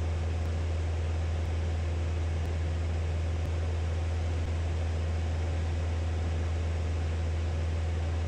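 Steady drone of a single-engine light aircraft's engine and propeller in cruise, heard from inside the cockpit: a strong low hum under an even rushing hiss, unchanging throughout.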